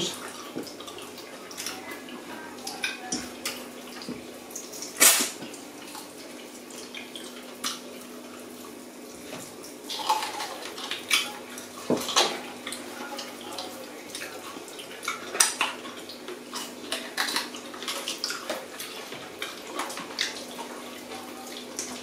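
Close-up eating sounds from oxtail being eaten by hand: scattered wet smacks, slurps and short clicks of fingers and food against plates. The loudest comes about five seconds in.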